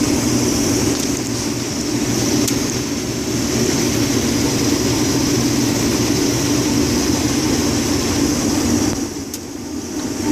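Case IH 2388 combine running while harvesting soybeans, heard from inside the cab: a steady, dense machine drone with a high whine above it. It eases off briefly near the end, then comes back.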